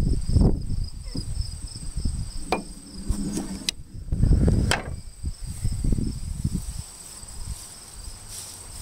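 Insects chirring steadily in a continuous high drone, one strand pulsing quickly, over a low irregular rumble of handling and movement on the microphone. Three sharp clicks come a little before and after the middle.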